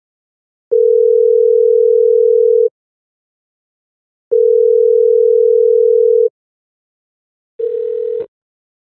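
Telephone ringback tone of an outgoing call: two steady rings about two seconds each, then a third ring cut short after under a second, mixed with line noise, as the call is answered.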